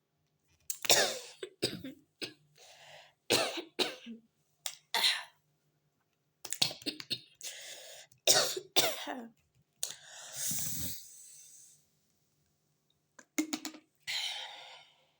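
Forced, put-on coughing and throat clearing from a person: short, sharp coughs in several clusters separated by pauses, with a longer drawn-out one about ten seconds in.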